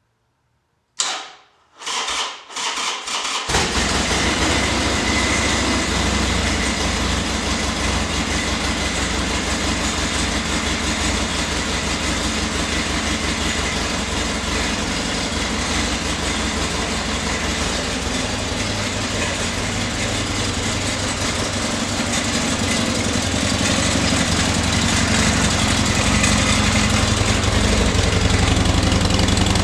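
Harley-Davidson XR1200X's air-cooled 1200 cc V-twin being started: the starter cranks in a few short bursts about a second in, then the engine catches at about three and a half seconds and keeps running steadily, getting slightly louder near the end. This is the flood-damaged bike starting on a new battery and fresh fuel.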